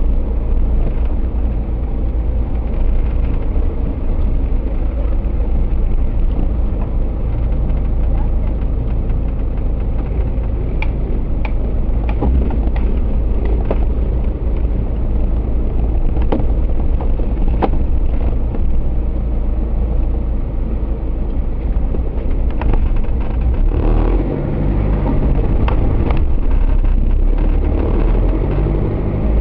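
Suzuki Jimny's engine running as the vehicle drives off-road, with a steady deep rumble and a few sharp clicks and knocks. The engine gets louder and its note changes in the last few seconds.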